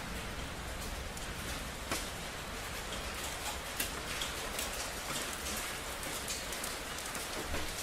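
Steady rain, an even hiss with many scattered drops ticking sharply on hard surfaces, a few louder drops standing out about two and four seconds in.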